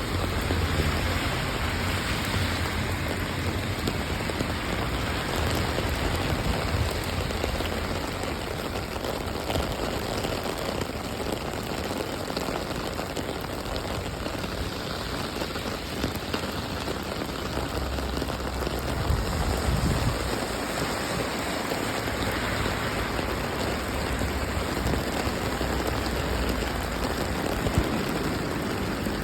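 Steady rain falling and pattering on surfaces, with a low rumble that swells near the start and again about two-thirds of the way through.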